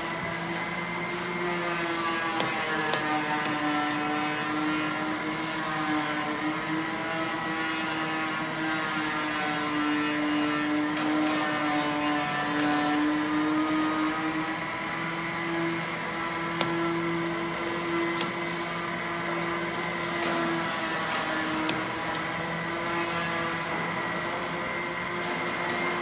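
Southwest Trak DPM vertical bed mill's spindle motor running with a steady whine made of several tones, which sag slightly in pitch around the middle and rise again. A steady high tone sits above it, and a few sharp clicks break in.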